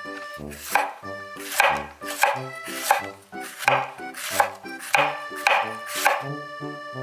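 Chef's knife shredding red cabbage on a wooden cutting board: about nine crisp cutting strokes, roughly one every two-thirds of a second, stopping about six seconds in.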